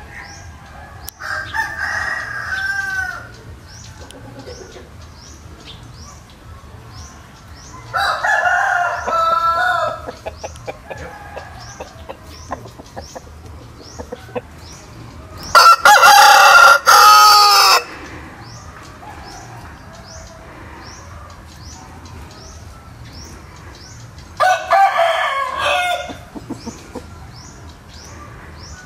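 Rooster crowing four times, roughly seven seconds apart; the third crow, about halfway through, is by far the loudest and closest. Faint high chirps repeat steadily in between.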